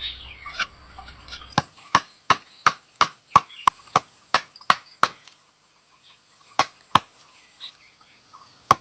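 Hammering: a quick run of about a dozen sharp, even strikes at roughly three a second, then a pause and three more single strikes.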